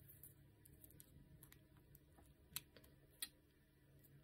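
Near silence with a few faint, sharp plastic clicks, two of them clearer a little past halfway: small three-pin cable connectors being handled and pushed into the sockets of a Feetech STS3215 servo.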